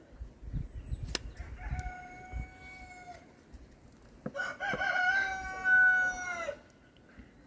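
A rooster crowing twice: a fainter crow about two seconds in, then a louder, longer crow that drops in pitch at its end. A single sharp snip of hoof-trimming shears comes about a second in.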